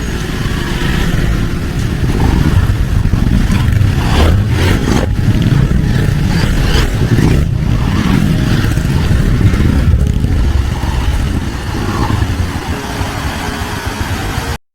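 Loud, steady rush of a waterfall in heavy flow, with a few brief crackles. It cuts off suddenly near the end.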